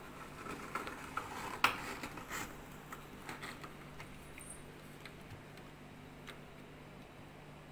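A plastic kulfi mould tray being pushed into a frosted freezer compartment, knocking and scraping against the frost and the freezer walls. It makes a run of small clicks and knocks, the loudest about a second and a half in, that thin out to occasional ticks, over a faint steady low hum.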